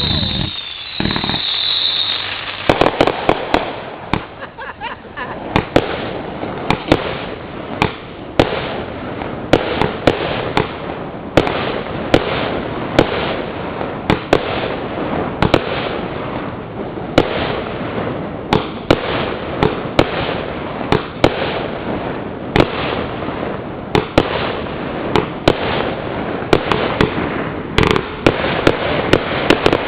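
Fireworks firing from consumer 1.4g cakes and mortar racks. A hiss for the first two seconds, then a long, dense run of sharp bangs, often several a second, over continuous noise.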